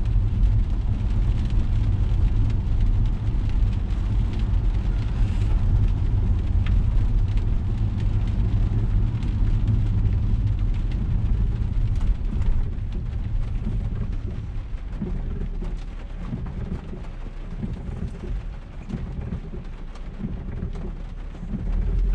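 Road and engine noise heard inside the cabin of a 2002 Volvo V70 on the move: a steady low rumble with tyre hiss, easing somewhat about two-thirds of the way through.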